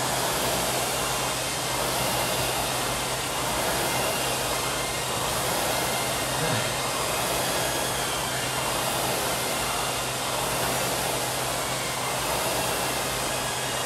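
Rowing machine's fan flywheel whirring steadily, swelling and easing gently with each stroke.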